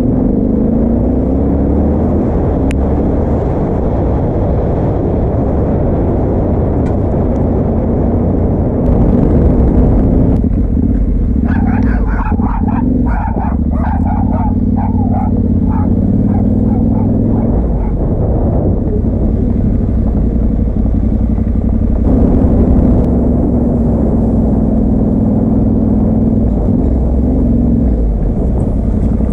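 Yamaha Ténéré 700 parallel-twin engine running while riding up a gravel track, its pitch rising and falling as the throttle opens and closes.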